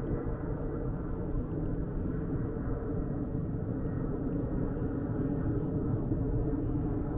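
Steady low outdoor rumble with no distinct events, growing slightly louder near the end.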